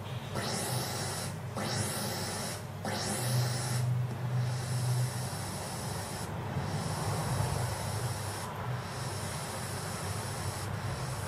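MOS 6581R3 SID sound chip of a Commodore 64 playing SIDBench test sounds: stretches of noise broken by short gaps every second or two, with sweeping pitch glides in the first few seconds and a steady low hum beneath. This chip is suspected of a fault because it wasn't producing a game's flange effect.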